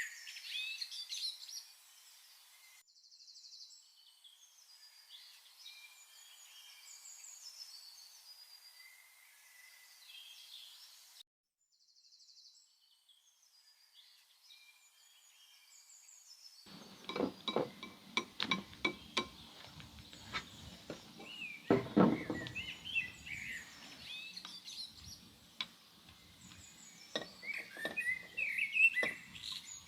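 Birds chirping, with a series of sharp knocks and clinks starting a little past halfway.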